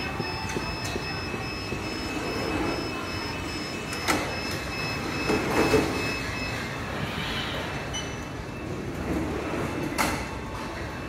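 Automated warehouse robot handling a plastic parts tote at a roller conveyor: a steady mechanical rumble and rattle with a high whine that stops about two-thirds of the way through, and sharp clacks about four seconds in and again near the end as the tote is shifted.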